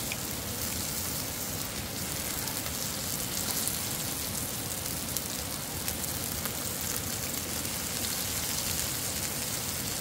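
Steady hiss of rain mixed with steaks sizzling on a hot griddle, with a few light clicks from tongs and scissors.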